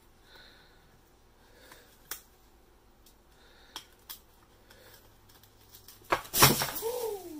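Faint scattered clicks as a parrot works at its wooden perch, then about six seconds in a loud clatter as the perch gives way and falls onto the windowsill with the bird. A short cry falling in pitch follows the crash.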